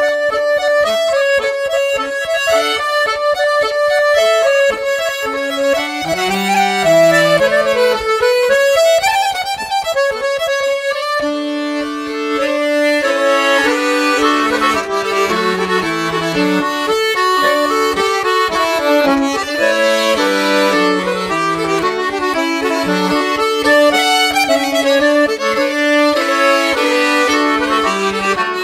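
Instrumental background music led by an accordion playing a melody.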